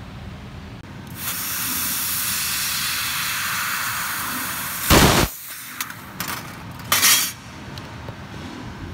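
Handheld 2000 W laser welding torch working on thin stainless steel sheet: a steady hiss for about four seconds, then a short loud burst, a few clicks, and a second short burst.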